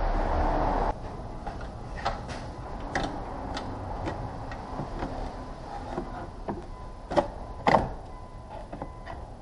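A steady low hum cuts off sharply about a second in. Then come scattered light clicks and taps, typical of hand work on car parts, with two sharper knocks about half a second apart near the end.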